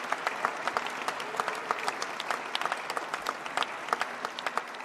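Audience applauding: many hands clapping steadily, beginning to ease off near the end.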